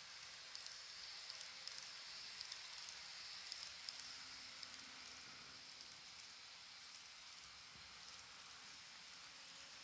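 Faint rolling hiss of a KATO N-gauge model train running on its track, with light wheel ticks over the first few seconds.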